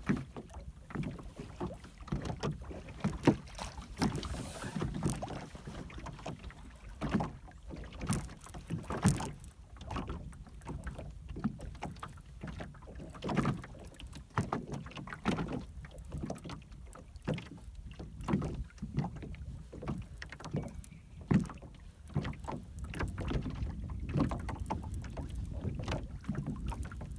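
Water slapping and lapping against the hull of a small anchored boat, with irregular knocks, over wind rumbling on the microphone.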